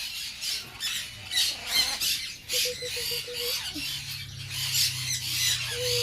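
Macaws squawking, a steady chatter of short harsh calls one after another. A low hum comes in about two-thirds of the way through.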